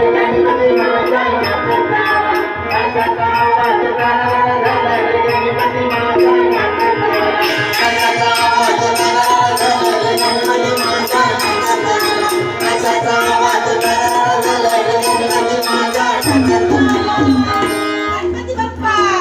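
Instrumental passage of Marathi devotional song music, pitched instruments over a steady percussion beat.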